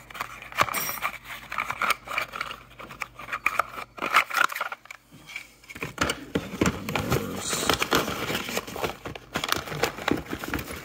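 Cardboard box and brown packing paper rustling and crinkling as hands rummage through the box, with scattered clicks and scrapes.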